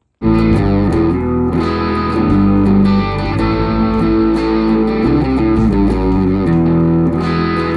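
Background music: a steady electric-guitar track with a regular beat.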